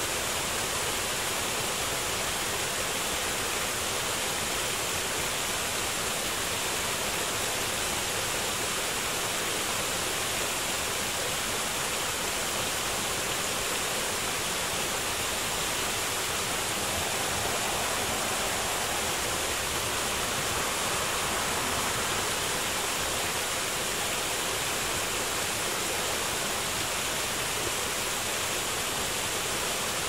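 Small waterfall pouring over a rock ledge into a shallow pool: a steady rush of falling water, mostly hiss with little deep rumble.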